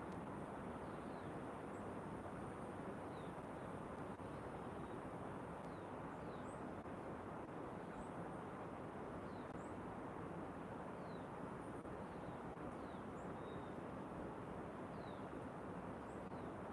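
Birds giving short, high chirps every second or so over a steady rushing background noise.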